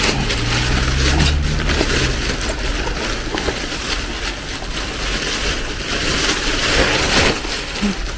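Black plastic garbage bag rustling and crinkling close to the microphone as it is carried and handled, a dense run of crackles. A low steady hum sits underneath for about the first two seconds.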